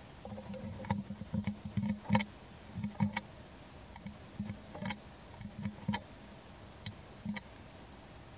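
Newborn monkey suckling at its mother's nipple: short, irregular wet sucking and gulping clicks with soft low thumps, coming in quick little runs.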